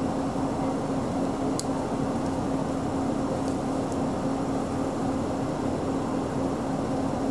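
City bus diesel engine idling while the bus stands still, a steady hum heard from inside the cabin, with a couple of faint ticks.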